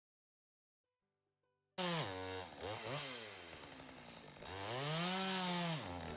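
Silence for about the first two seconds, then a Husqvarna chainsaw cuts in abruptly, running and revving. Its engine pitch dips and rises, climbs high about two-thirds of the way through, and falls again near the end.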